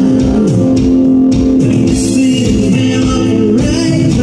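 Live band playing loudly: electric guitar, bass guitar and keyboards, with a man singing over them.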